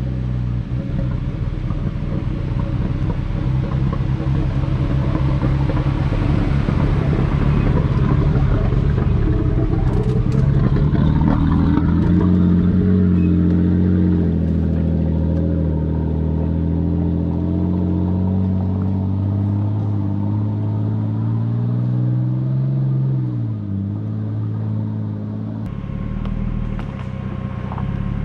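Nissan Patrol Y60's swapped-in Skyline RB25 turbo straight-six running under load on a dirt track, its pitch rising and falling with the throttle, dipping sharply and picking up again near the end. A few short knocks about ten seconds in.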